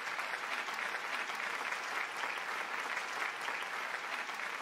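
A small crowd clapping steadily.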